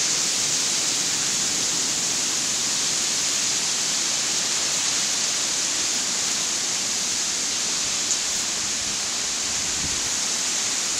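Thunderstorm rain and high wind through the trees: a steady hiss with no breaks and no thunder.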